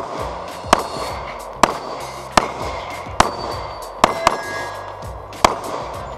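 Pistol shots fired at an uneven pace of about one a second, with a quick pair just past the middle, over background funk music with a steady bass line.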